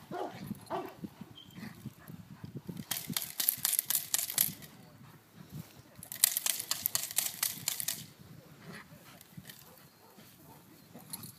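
Two bursts of rapid crackling rattle, each lasting about one and a half to two seconds, from protection-training bite gear as a dog grips and tugs at a helper's padded sleeve.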